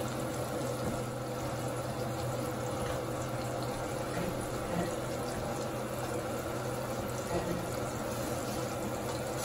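Ribeye steaks sizzling steadily in butter in a cast iron skillet as they sear.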